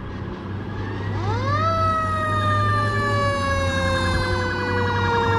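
Fire engine siren rising steeply about a second in, then sliding slowly down in pitch as it approaches, over the low rumble of heavy vehicle engines.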